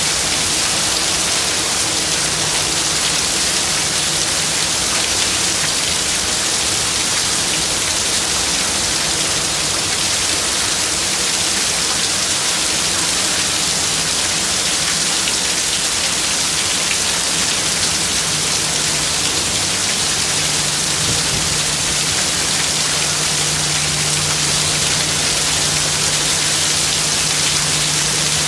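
Heavy thunderstorm downpour: rain pelting down steadily onto the ground, trees and street in a dense, even hiss.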